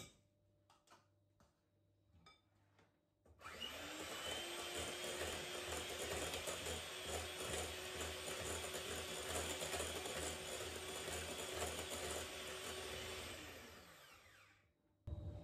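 Electric hand mixer beating egg, sugar and yogurt cake batter in a glass bowl. It starts about three seconds in with a rising whine, runs steadily, then winds down near the end with a falling pitch.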